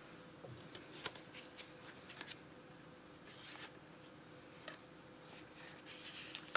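Small cardboard box handled and turned over in the hands: a few light taps and clicks on the card and soft rubbing of cardboard against the hands, over a faint steady hum.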